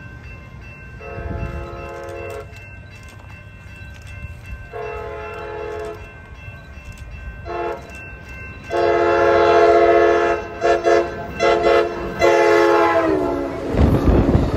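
Amtrak Pacific Surfliner train's chord horn sounding two long blasts, a short one and then a long one broken into several toots, the grade-crossing signal, its pitch dropping as the cab car passes. It is followed by the loud rush of the bilevel cars going by.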